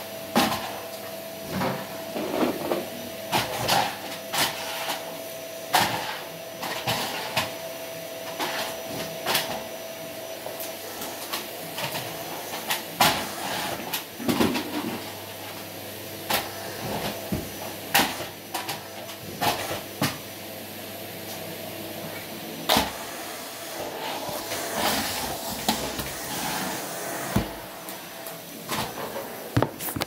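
Repeated knocks and clatter of a canister vacuum cleaner's wand and hose and of household things being bumped and moved, over a steady background hum. A faint steady whine fades out about a third of the way through.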